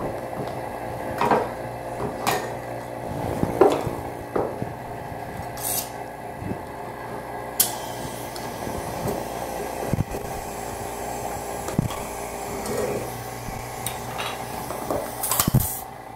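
A small electric vacuum pump runs with a steady hum while glass mason jars, metal lids and a plastic jar-sealer cover are handled on a table, giving a dozen or so scattered clinks and knocks.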